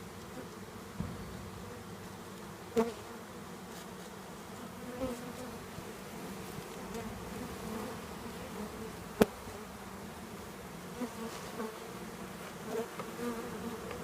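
A mass of honeybees buzzing steadily, with a few sharp knocks, the loudest about nine seconds in.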